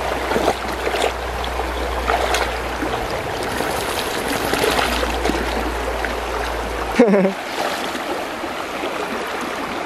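Shallow, rocky river water flowing, with splashing as an Australian shepherd wades through it.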